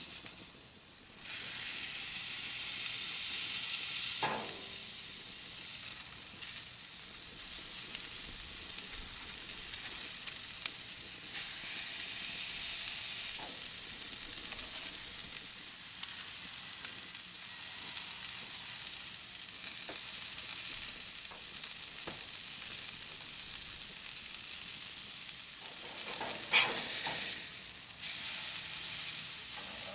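Mustard-coated beef burger patties frying on a hot flat-top griddle, a steady sizzle throughout. A few short, sharper sounds cut in, the loudest near the end.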